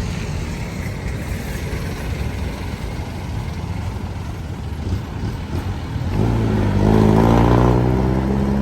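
Steady street traffic rumble. About six seconds in, a vehicle's engine passes close by, and its low drone swells to become the loudest sound.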